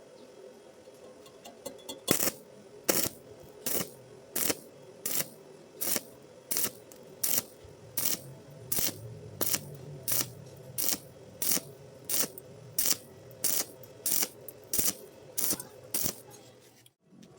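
Stick (manual metal arc) welding on thin iron done in short, evenly timed bursts: the arc crackles for about a third of a second, breaks, and strikes again about every 0.7 seconds, some twenty times. This start-stop technique keeps the rod from burning through thin metal.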